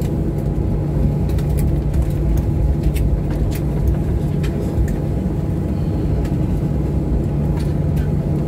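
Cabin noise of a Boeing 737-900ER rolling out after touchdown: a steady low rumble and hum from its CFM56-7B engines and landing gear, with scattered light clicks and rattles.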